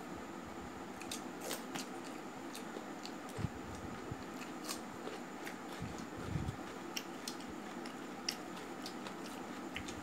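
Close-up eating sounds: small scattered clicks and smacks from chewing and from fingers working rice and curry on a steel plate, with a couple of soft low thumps around the middle.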